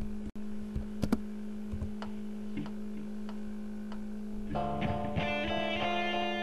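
Background music: a steady held low note, then a plucked guitar melody comes in about four and a half seconds in.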